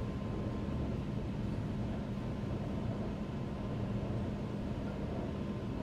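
Shanghai Metro Line 16 train heard from inside the car while running at speed on elevated track: a steady rumble with a constant low hum and a faint higher tone.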